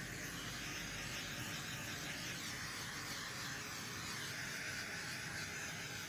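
Small handheld butane torch hissing steadily as it is swept over wet poured acrylic paint, popping the air bubbles and bringing out cells.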